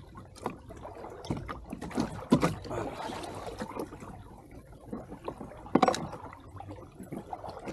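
Irregular knocks, clicks and rustles of fishing line and gear being handled in a kayak, with two sharper knocks about two seconds in and near six seconds in.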